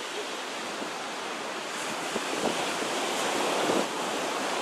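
Small Gulf of Mexico waves breaking and washing up a sandy beach: a steady rush of surf that swells toward a louder break near the end.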